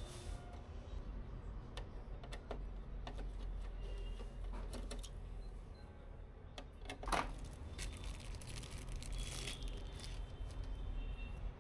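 Scattered sharp clicks and light knocks, with one louder knock about seven seconds in and a quick run of clicks just after it, over a steady low hum.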